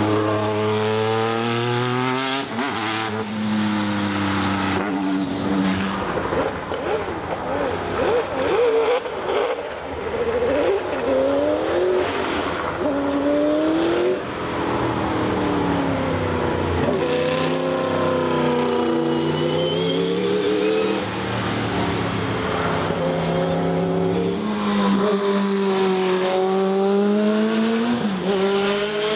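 Turbocharged race car engines at full throttle as cars pass. The pitch climbs through each gear and drops sharply at each upshift, several times over.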